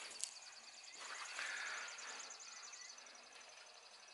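Faint outdoor ambience with a high, rapid animal trill running through most of it, fading near the end, and a soft rustle about a second in.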